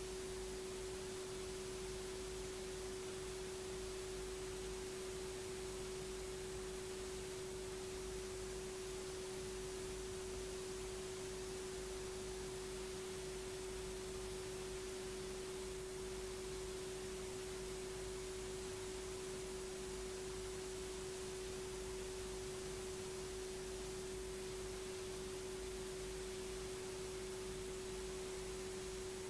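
A single steady, unchanging tone with a fainter lower tone beneath it, over a constant hiss.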